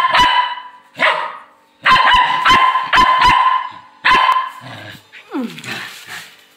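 Small white spitz-type puppy barking a quick series of short, sharp, high yaps, some in rapid pairs, while crouched in a play bow: playful barking that invites play. The barks get softer and sparser near the end.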